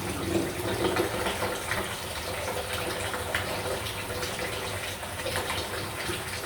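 Water running steadily from a live mains supply pipe that can't be shut off because the stopcock hasn't fully closed, with small clicks of handling mixed in.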